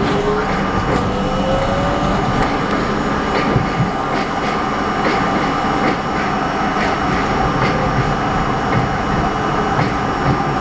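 R32 subway car running on elevated track, heard from inside the front car: a steady rumble of wheels on rail with scattered clicks, and a faint whine that rises in pitch over the first couple of seconds.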